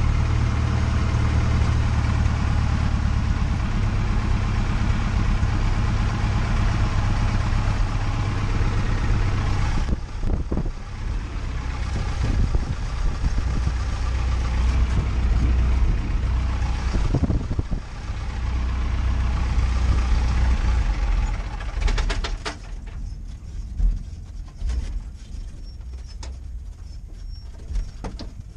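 1939 Piper J-3 Cub's engine running as the plane taxis, heard from inside the cabin. The power eases off about ten seconds in and again near eighteen, then the engine sound drops sharply about twenty-two seconds in, leaving quieter clicks and rattles.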